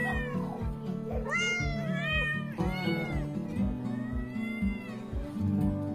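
Several domestic cats meowing for food, about five meows in a row, some overlapping, with one long drawn-out meow about four seconds in. Background music with a steady beat plays underneath.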